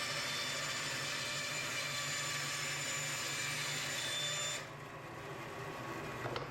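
SawStop table saw running through a cut in wood: a steady whir with a high whine that drops off abruptly about four and a half seconds in, while the motor keeps running at a lower hum. A short sharp click near the end.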